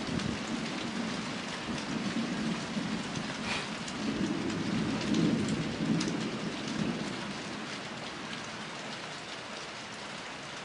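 Steady rain falling in a thunderstorm, with scattered drop ticks. A low rumble of distant thunder swells about four to seven seconds in, then fades.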